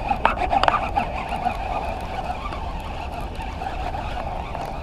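Baitcasting reel being cranked steadily, its gears whirring as a lure is retrieved, with a few sharp clicks in the first second.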